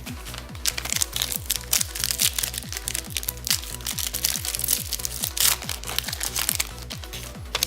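Foil trading-card pack wrapper crinkling and tearing as it is opened, in dense crackles from about half a second in until near the end. Underneath is background electronic music with a steady beat.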